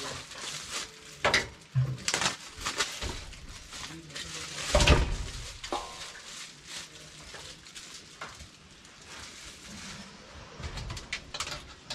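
Kitchen handling noises: scattered knocks, clicks and rustling as raw chicken pieces are handled, with one louder thump about five seconds in.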